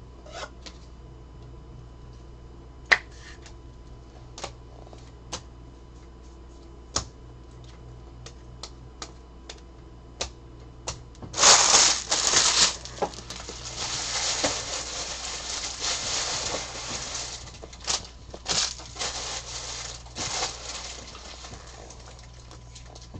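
Baseball trading cards being handled and sorted on a table: scattered taps and clicks as cards and small stacks are set down. About halfway there is a loud rustle, then several seconds of continuous sliding and shuffling of cards.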